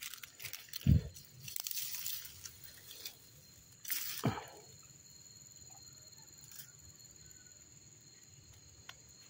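Footsteps and rustling through dry grass and leaf litter, with two dull thumps, about a second in and about four seconds in, then only faint background for the rest.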